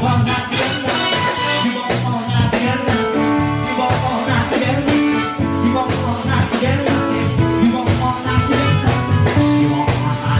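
Live band playing an upbeat dance medley: electronic keyboard and drums keeping a steady beat, with a singer's voice over it.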